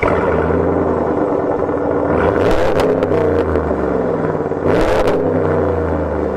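2022 Ram 1500 Rebel G/T's 5.7-litre Hemi V8 with eTorque running through its Mopar performance exhaust, idling with a deep burble and revved up twice from idle.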